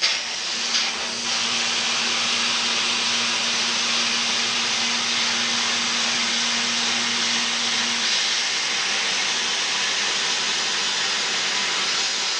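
Victor plasma cutter's torch cutting steel plate: the arc and its air jet give a loud, steady hiss. A faint low hum runs underneath and stops about eight seconds in.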